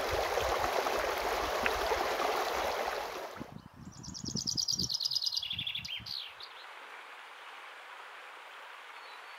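Shallow river water rushing over rocks, cutting off after about three seconds. A chaffinch then sings one song phrase: a fast run of repeated notes stepping down in pitch and ending with a flourish. After that only a faint steady hiss remains.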